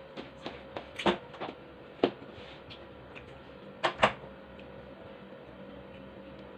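Eating watermelon by hand: a string of short wet clicks and knocks from biting, chewing and handling the juicy slices, loudest about one, two and four seconds in, the last a quick pair.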